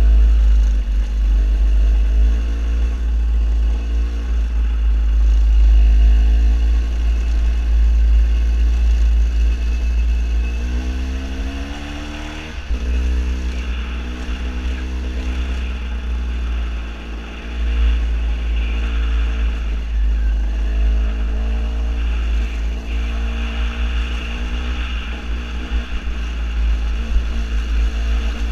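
KTM 250 EXC two-stroke dirt bike engine running under way, its note rising and falling with the throttle, with one long climbing rev midway that drops off sharply. A heavy low rumble of wind on the microphone runs under it.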